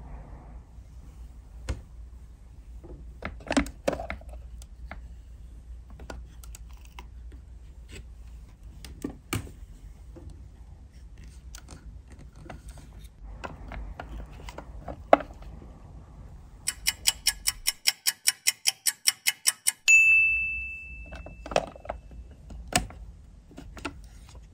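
Light clicks and taps of small plastic parts being handled as the doors of a miniature plastic toy fridge are opened. Near the end comes a fast even run of ticks, about seven a second for three seconds, ending in a single bright ding that rings out and is the loudest sound.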